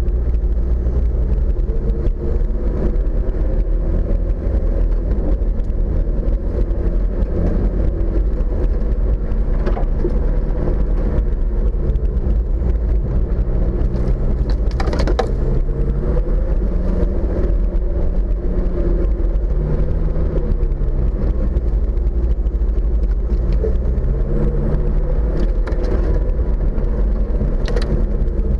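Off-road 4x4's engine running at low revs while the vehicle crawls over a rough dirt track, its pitch rising and falling with the throttle over a heavy low rumble. A few sharp knocks from the vehicle going over the bumps.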